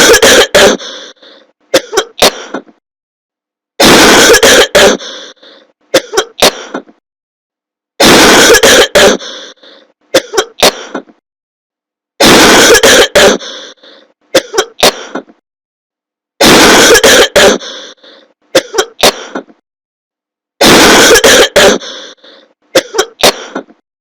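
Loud, distorted coughing: a long harsh cough followed by two or three short coughs, the same pattern repeating about every four seconds.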